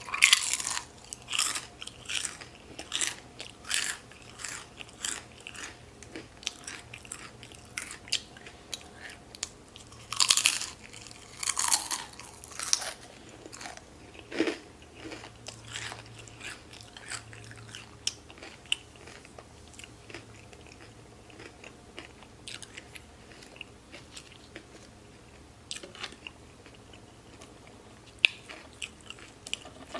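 Close-up mukbang eating sounds: a person chewing food into the microphone, with repeated moist clicks about twice a second. It is loudest in the first few seconds and again around ten to thirteen seconds in, then quieter.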